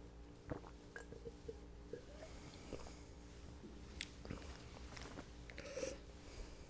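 Faint mouth noises and a few small clicks from someone tasting sparkling water, over a low steady room hum.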